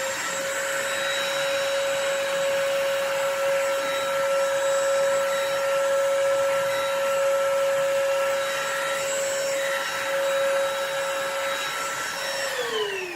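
Budget cordless stick vacuum cleaner running at maximum power, a steady motor whine over rushing air, then spinning down with a falling whine near the end as it is switched off. It still cannot lift a paper clip, a weak suction that the owner puts down to a battery that may not be fully charged.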